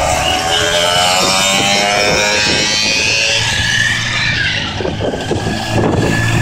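A stream of motorcycles riding past one after another, their engines' pitch rising and falling as each bike goes by.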